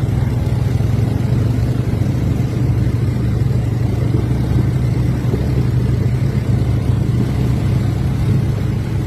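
Quad bike (ATV) engine running with a steady, even drone; no clear revving rises or falls.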